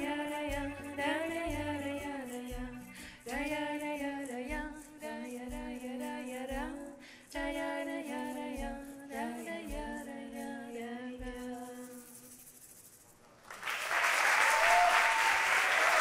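A woman sings a melody over plucked cello bass notes; the song closes about twelve seconds in, and after a brief hush the audience breaks into applause.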